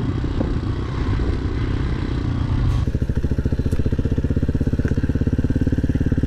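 A motorcycle engine running while riding on a dirt track. About three seconds in it changes abruptly to a green dirt bike's engine running with a rapid, even beat.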